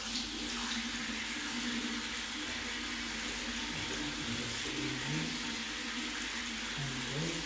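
Water running steadily from a tap into a basin.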